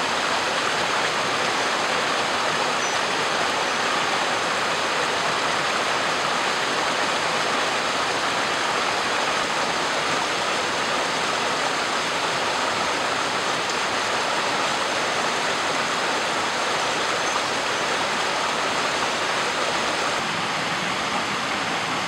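Stream water flowing, a steady, even wash of noise with no breaks.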